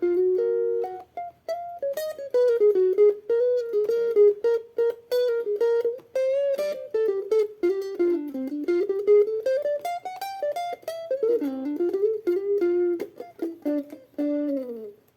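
A plucked string instrument played solo, picking out a single-note melody with string bends and a wavering dip in pitch. It ends on two notes sliding down together, then stops.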